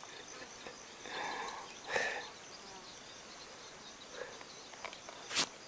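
Steady high chirring of insects such as crickets, with two brief rustles about one and two seconds in and a sharp click near the end.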